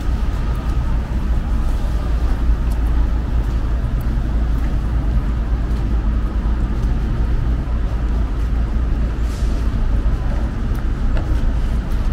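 Steady low rumble of road traffic on a city street, with no single event standing out.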